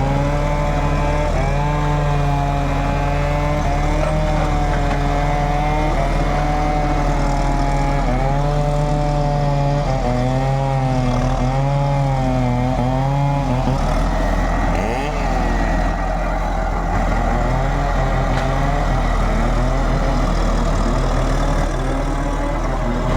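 Backhoe's diesel engine running under working load, its pitch rising and dipping every second or two as the hydraulics take the strain; after about fourteen seconds it turns rougher, with gliding changes in engine speed.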